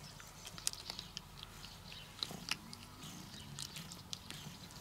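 A kitten crunching dry cat kibble: soft, irregular crisp crunches and clicks as it chews, the sharpest about two and a half seconds in.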